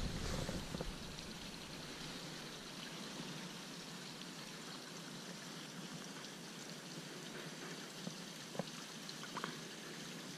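Small creek trickling steadily, faint, with a few light clicks near the end.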